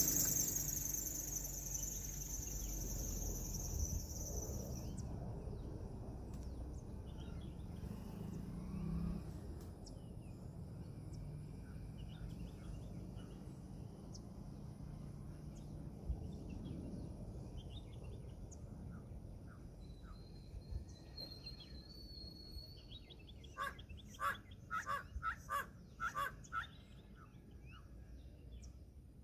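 Jet airliner landing: a strong high engine hiss that cuts off about five seconds in, leaving a low rumble that fades away slowly. Near the end a bird calls several times in quick succession.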